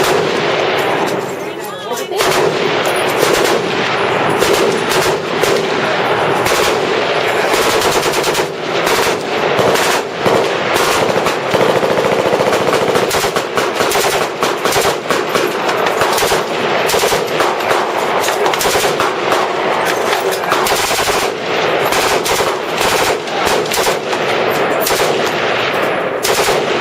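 Automatic weapons firing in long, overlapping bursts, the shots running together with hardly a break.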